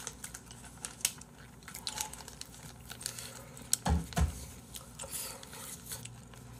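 Close-miked eating at a table: chewing, with many small clicks of chopsticks against dishes. About four seconds in there are two dull knocks close together, the loudest sounds here.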